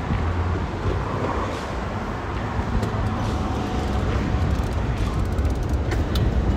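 City street traffic noise: cars running and passing, with a steady low engine hum and a few faint clicks near the end.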